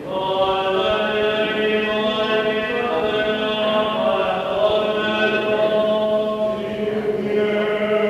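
Byzantine liturgical chant: long held, slowly moving sung notes over a steady low held note.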